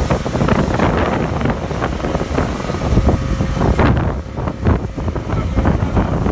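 Wind buffeting the microphone in heavy, uneven gusts over the steady hiss of a pressure washer spraying foam through a foam cannon. The hiss thins out about four seconds in.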